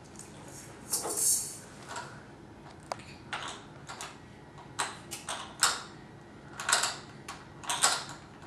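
Plastic clicking and rattling from a baby walker's activity panel as small hands work its spinners and buttons: irregular clicks and short rattles, a dozen or so, loudest about a second in and again in the second half.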